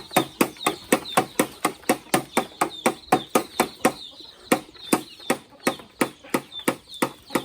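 Rapid, even chopping with a blade, about three to four strokes a second, each stroke with a short metallic ring; the chopping pauses briefly about four seconds in, then carries on.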